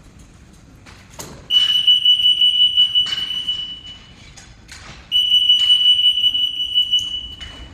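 Alarm of an HR605 acrylic RF EAS anti-shoplifting gate going off as an RF security tag is carried through it: a steady high-pitched beep sounds twice, each about two and a half seconds long.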